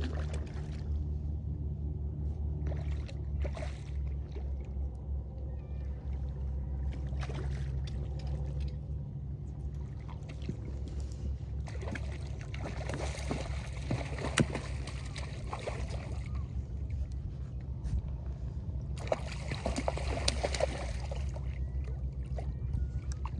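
Hooked coho salmon thrashing and splashing at the surface in two bouts, one about halfway through and one near the end, over a steady low hum.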